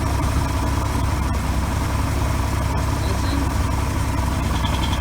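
Boat motor running steadily at low speed, an even low engine drone with a faint steady whine above it.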